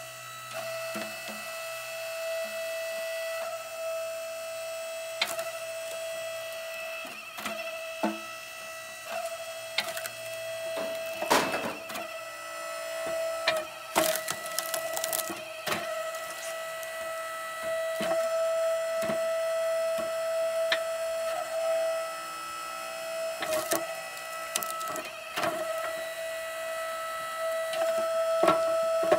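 Split Fire 1165 electric log splitter running with a steady whine from its motor and pump, swelling at times as the ram pushes. Hickory shorts crack apart on the wedge, and split pieces knock onto the metal tray.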